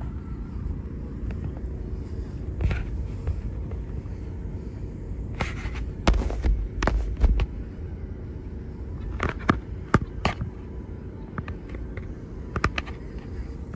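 Firecrackers popping in scattered, irregular cracks, several in quick succession in the middle and again near the end, over a steady low background rumble.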